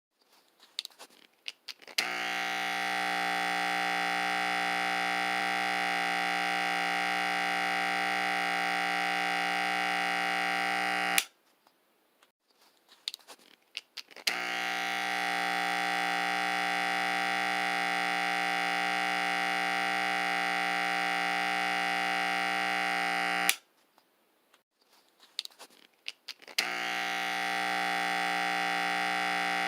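Electric barber clippers switched on with a click and buzzing steadily for about nine seconds before being clicked off, twice over, then switched on a third time near the end. Small handling clicks come in the pauses between runs.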